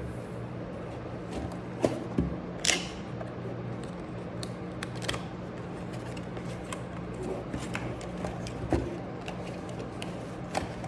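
Hands handling the jump rope's carry bag and packaging: scattered clicks and short rustles, over a steady low hum.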